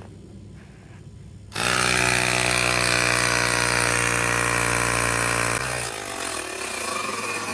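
An electric air compressor starts about a second and a half in and runs steadily, inflating a flat tire. Its sound changes a little past two-thirds of the way through.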